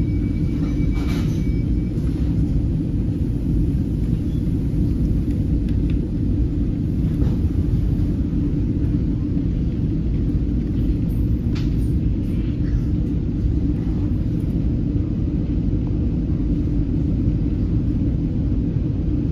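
Steady low rumble inside an NJ Transit Comet V passenger coach standing still at a station, with a few faint clicks.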